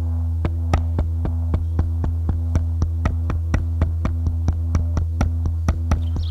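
Live electronic music: a steady deep synthesizer drone with sustained tones above it, joined about half a second in by a regular run of sharp clicking percussive hits, about four a second.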